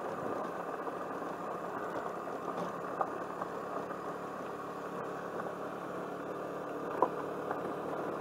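Suzuki Burgman scooter engine running steadily while riding up a gravel road, with the crunch of its tyres on the gravel. A sharp tick sounds about three seconds in and another, louder one about seven seconds in.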